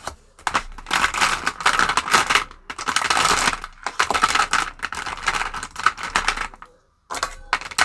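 Clear plastic cash pocket and polymer banknotes being handled: rustling with quick irregular clicks, stopping about six and a half seconds in.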